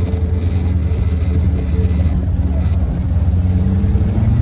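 Motor vehicle engine running steadily at low revs, rising in pitch near the end as it speeds up.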